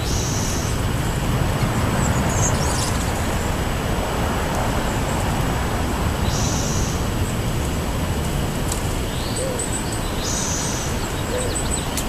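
Steady road-traffic rumble, with small birds calling over it: three short buzzy high calls a few seconds apart, and some faint high chirps in the second half.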